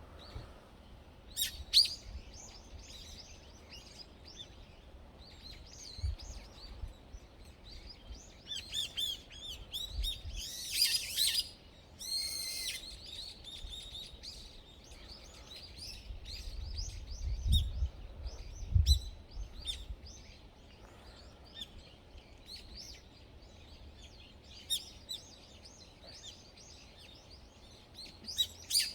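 Songbirds chirping and calling, with short repeated chirps and a couple of dense, high trilling bursts about halfway through. A few low thumps come a little after the middle.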